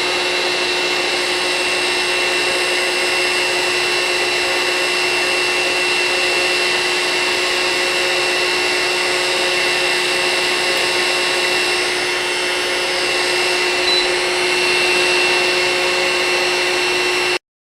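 Wagner Furno 300 heat gun running: a steady rush of air from its blower with a motor hum and a high whine. It cuts off abruptly near the end.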